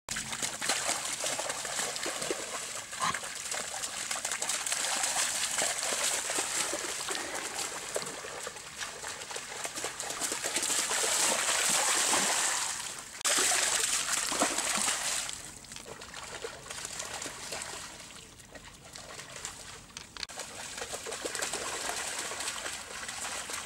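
Water splashing as dogs wade and run through a shallow stream, the splashing heaviest in the middle and lighter later on.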